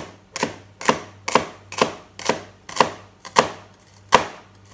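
Chef's knife slicing through an onion half and knocking on a plastic cutting board in an even rhythm, about two cuts a second: the rows of cuts made before dicing.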